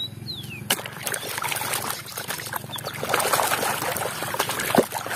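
Water splashing and trickling as a mud-caked plastic toy train is swished and rubbed by hand in a basin of water, with a couple of sharp clicks.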